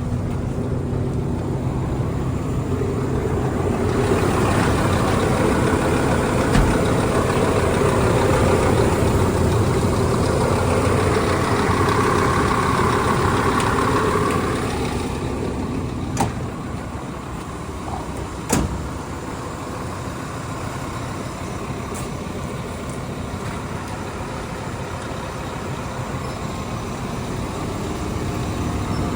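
Doosan DX300LC-5 Hybrid excavator's engine running. It grows louder and busier from about four seconds in, as if under load, then settles back to a steadier idle after about fifteen seconds. A couple of sharp knocks come shortly after.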